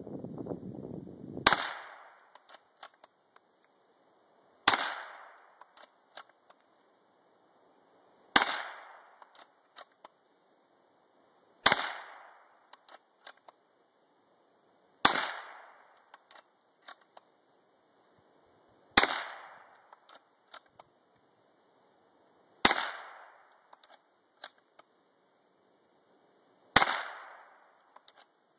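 Eight single gunshots fired one at a time, evenly spaced about three and a half seconds apart, each sharp crack followed by a short echoing tail.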